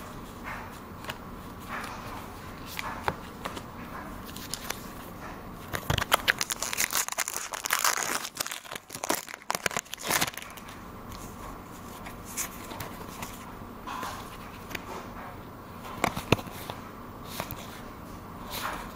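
Foil booster pack wrapper of Pokémon trading cards crinkling and tearing as it is ripped open, a burst of crackly rustling lasting about four seconds in the middle. Light clicks and rustles of cards being handled come before and after it.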